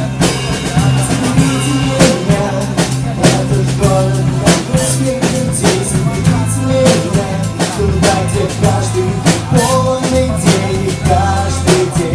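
Live band playing an instrumental passage of a song: a drum kit keeping a steady beat under a bass line and a melody.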